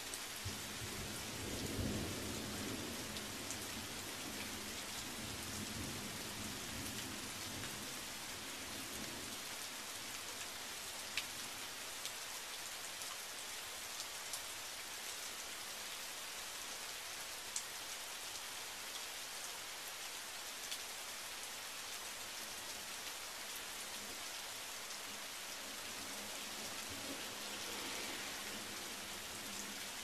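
Steady rain falling on pavement and shrubs during a thunderstorm. A low rumble of thunder swells about two seconds in and fades out by about nine seconds in, with a fainter rumble near the end and a few sharp drip taps between.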